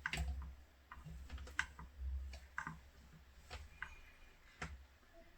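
Irregular small clicks and taps from hands working on wires and small tools at a bench, with dull low bumps mixed in.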